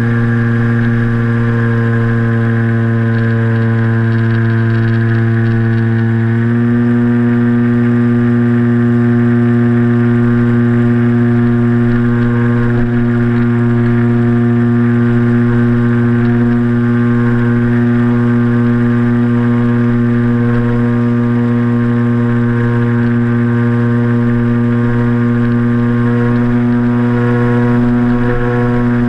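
Motor and propeller of a BlueWing RC flying wing in flight, heard close up from the camera mounted on the airframe: a steady droning whine whose pitch steps up once about six seconds in and then holds.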